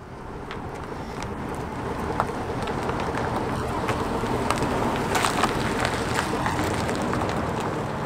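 A red SUV driving slowly past close to the ground: engine and tyre noise swelling over the first few seconds as it comes alongside, with small crackles from grit under the tyres.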